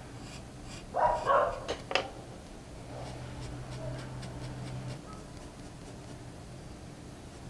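Graphite pencil scratching lightly on drawing paper in short sketching strokes. About a second in, two short loud animal calls break in, then two sharp clicks; a low steady hum follows for about two seconds.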